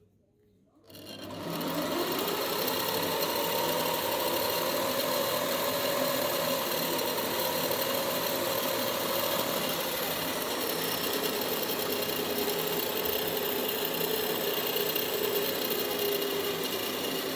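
Homemade belt sander, converted from a broken grinder, switched on about a second in and running steadily: a small electric motor's hum with belt hiss.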